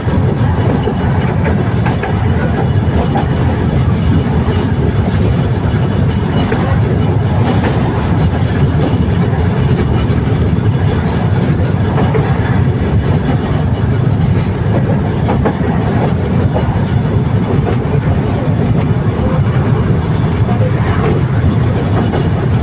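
Tatra T3SU tram running along the line, a steady loud rumble of wheels on rails and running gear heard from inside the car.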